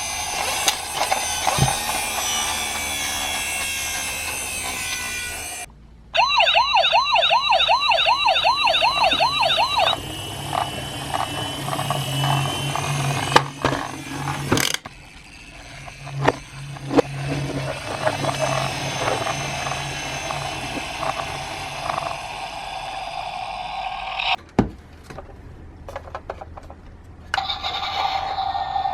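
Sirens of toy ambulance and police minicars. About six seconds in, an electronic siren warbles fast, about three cycles a second, for some four seconds. Scattered clicks and knocks of the plastic cars follow, and a steady two-tone siren starts near the end.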